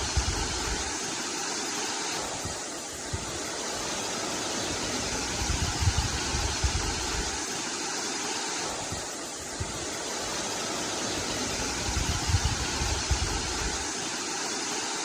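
River water rushing steadily, with a low rumble that swells and fades about every six seconds.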